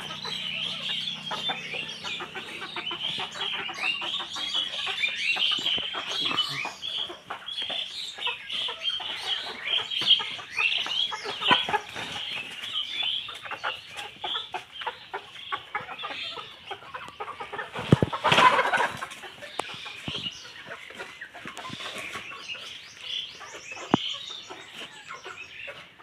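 A flock of brown chickens clucking and chattering continuously, many short overlapping calls. About two-thirds of the way through there is a louder burst of about a second.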